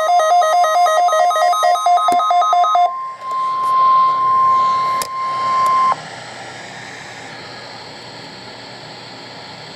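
Weather radio alarm warbling rapidly between two tones for about three seconds. Then the NOAA Weather Radio 1050 Hz warning alarm tone sounds steadily over broadcast static for about three seconds and cuts off suddenly, leaving steady radio hiss.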